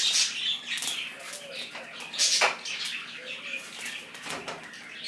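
Plastic bag crinkling and rustling in short crackles, loudest about two seconds in, as roasted chiles are dropped into it to sweat so their skins will peel.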